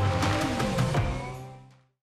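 Outro music ending: a held chord with a few sharp percussive hits, fading out over the last second.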